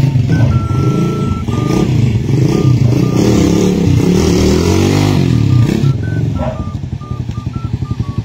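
200cc motorcycle engine running, revved up and down several times, then dropping back to a steady, pulsing idle about six seconds in. It runs smoothly after a tune-up with fresh valve clearance adjustment, its hard-starting problem now fixed.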